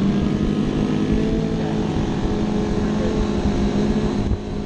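Motorcycle engine running at a steady pitch while riding, with the whole sound dropping briefly near the end.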